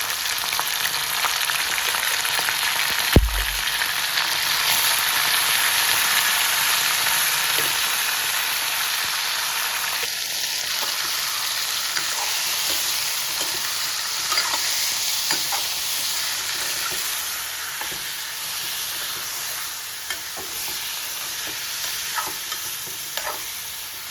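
Meat frying in hot oil in a karahi: a loud, steady sizzle that builds over the first few seconds and slowly eases off. One sharp knock about three seconds in, and scattered light clicks as it is stirred.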